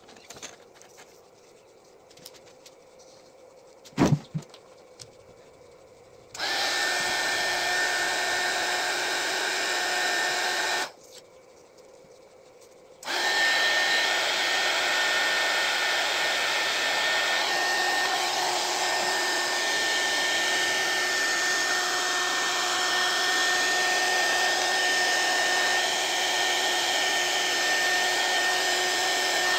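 Small 300 W hot air gun running, its fan blowing a steady hiss with a thin high whine. It switches on about six seconds in, cuts out for about two seconds around eleven seconds, then runs steadily. A single thump comes about four seconds in, before it starts.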